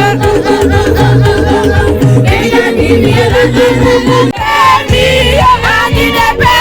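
Loud party music with a steady beat and a sung melody.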